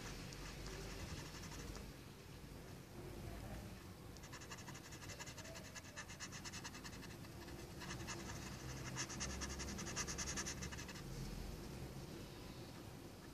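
Coloured pencil scratching on paper in quick back-and-forth shading strokes, in two runs of a few seconds each, starting about four seconds in.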